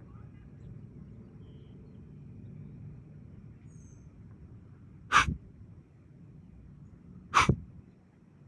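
Whitetail deer snort-wheezing: two short, sharp snorts blown through the nose, about two seconds apart, in the second half.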